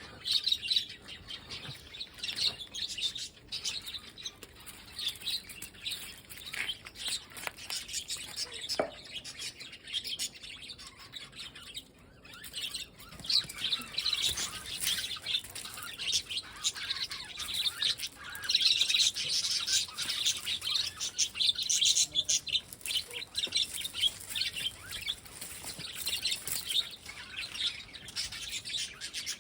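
Lovebirds chirping, a dense stream of short, high chirps that grows busier after the middle.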